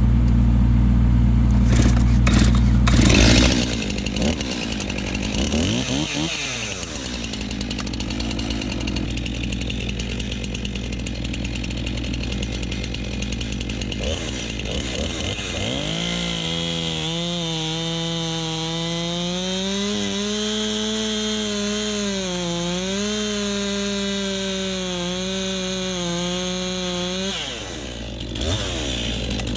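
Stihl MS 261 two-stroke chainsaw running at full throttle while cutting into a birch trunk to fell it, its pitch dipping and recovering under load. The engine note drops away near the end.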